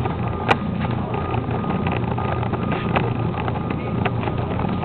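Mueller Plus washing machine running through a wash cycle: a steady motor hum with water churning, and a few light clicks.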